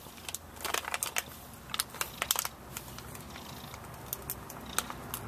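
A half-Siamese cat purring steadily while being stroked, close to the microphone, with scattered soft clicks and rustles over the purr.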